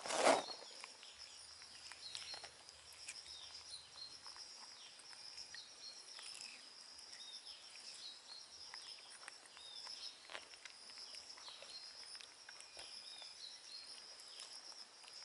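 Quiet outdoor rural ambience: a steady high-pitched insect drone, with short falling chirps repeating every second or two and scattered faint clicks. A brief louder noise comes right at the start.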